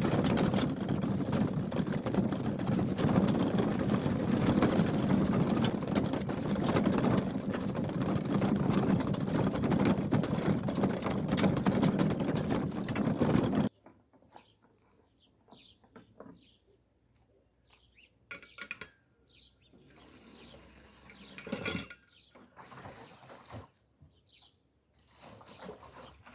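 Water pouring steadily, a loud rushing flow that cuts off suddenly about fourteen seconds in. Afterwards it is near quiet, with scattered faint clicks and a few short chirps.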